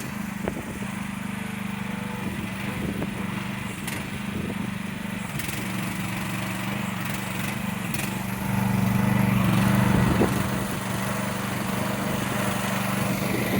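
Small engine of a Chinese mini excavator running steadily, growing louder for about two seconds past the middle.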